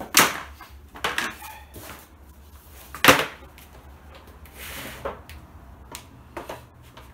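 Sharp knocks and clatter of Nuplas plastic beehive box panels being handled and fitted together, about half a dozen separate knocks with the loudest about three seconds in.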